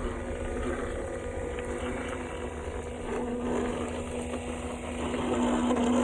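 Small motor of a radio-controlled toy truck running with a steady whine, its pitch shifting near the end.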